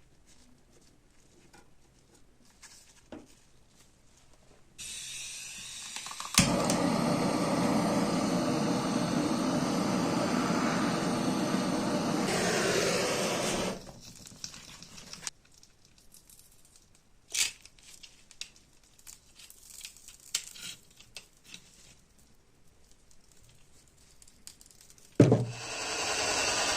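An electric power tool running steadily for about eight seconds, then spinning down. Light clicks and knocks of handling come before and after, and near the end it starts up again with a sharp knock.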